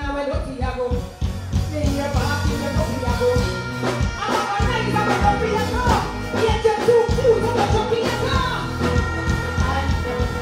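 Live dancehall performance over a stage PA: a female vocalist sings into a microphone over a backing riddim with a steady beat.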